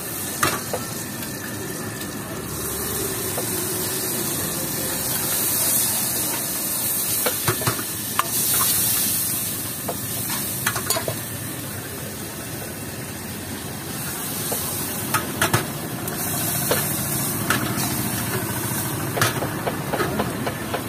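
Vegetables sizzling in hot oil in a steel wok, with a steel ladle stirring and knocking sharply against the wok every so often.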